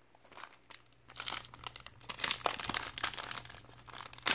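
Foil trading-card pack wrapper crinkling and crackling in the hands as it is gripped and worked open, starting about a second in.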